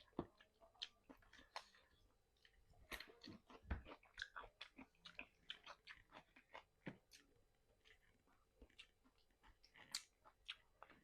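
Quiet, close-up chewing and crunching of fried chicken, a steady run of small irregular crackles and wet mouth clicks.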